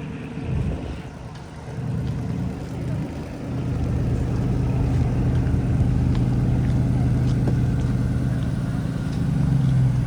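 A motor vehicle's engine running close by, a steady low hum that grows louder about four seconds in and swells again near the end.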